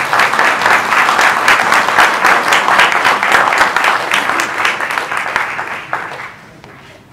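Audience applause, many hands clapping together, dying away about six seconds in.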